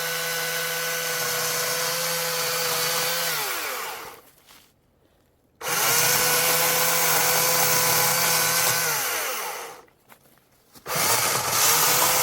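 Electric chainsaw running at a steady full speed in trigger bursts, cutting a notch in a small tree trunk. It runs, winds down and stops when released, sits silent for about a second, then starts abruptly at full speed. It does this twice, with a third start near the end.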